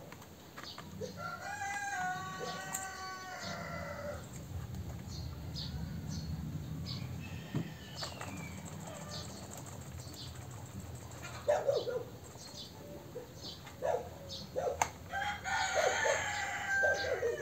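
A rooster crows once, a long call starting about a second in and falling away at the end. Short animal calls come several times in the last few seconds, over scattered light clicks and knocks from a gasoline chainsaw being handled with its engine not running.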